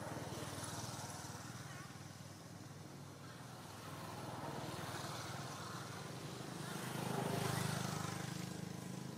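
Faint, steady hum of an engine running at a distance, swelling to its loudest about seven and a half seconds in.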